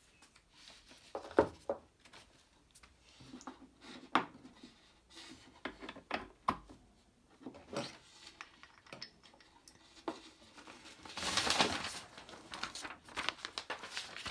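Handling noise: scattered clicks, knocks and rustles, with a longer rustling scrape about eleven seconds in.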